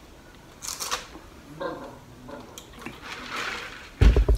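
Sipping through a straw from a large fountain-drink cup, with a short slurp about a second in, then a heavy thump near the end as the cup is set down on the table.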